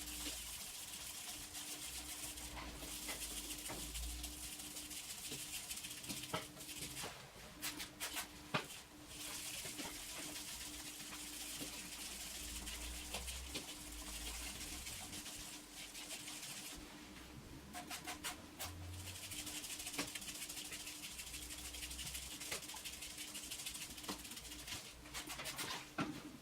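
Abrasive sanding of a plastic headlight lens: a steady scratchy rubbing with a few short pauses and a few sharp clicks.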